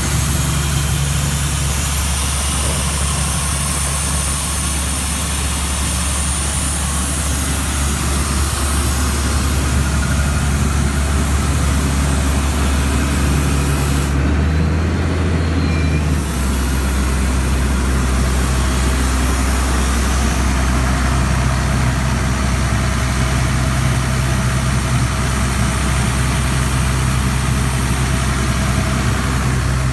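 The Cummins diesel engine of a 2006 Ingersoll Rand XP750WCU portable air compressor running steadily, a deep, even hum.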